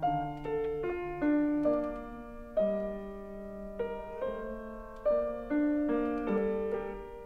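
Background piano music: a slow run of single notes and chords, each struck and then fading.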